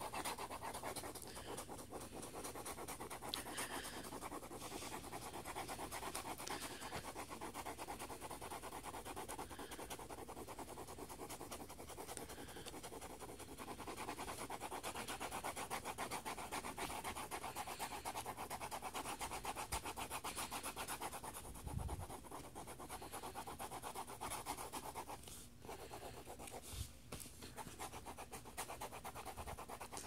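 Mechanical pencil lead scribbling rapidly back and forth across lined notebook paper on a binder, a steady scratchy rasp of quick shading strokes. A soft low thump comes about two-thirds of the way through.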